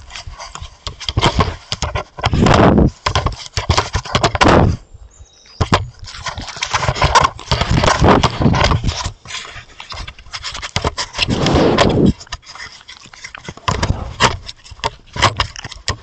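Roosevelt elk rubbing its furry hide against a trail camera: loud, irregular scraping and bumping of fur on the camera body, with a short pause about five seconds in.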